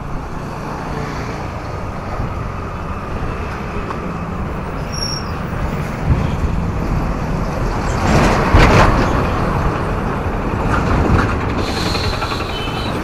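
Road traffic heard from a moving bicycle: a steady low rumble of wind and road noise, with a vehicle passing close about eight seconds in, the loudest moment, and a few short high tones near the end.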